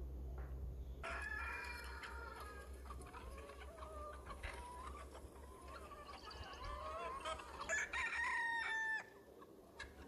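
A flock of desi chickens clucking and calling in many overlapping short calls, with a rooster crowing near the end.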